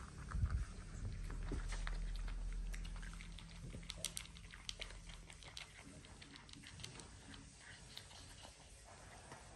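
French bulldog puppy eating food from a plastic bowl: a run of quick, irregular crunches and clicks, with a low thump just after the start.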